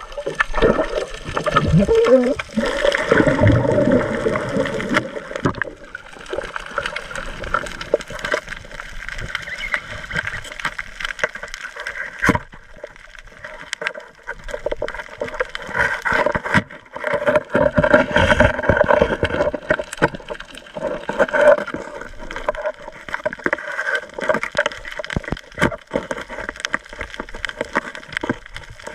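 Water heard through an underwater camera: muffled bubbling and gurgling that swells and fades in surges, with scattered short clicks throughout.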